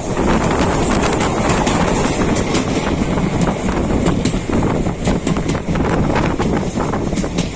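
Passenger train running at speed: a steady loud rumble with wind buffeting the microphone and scattered sharp clicks.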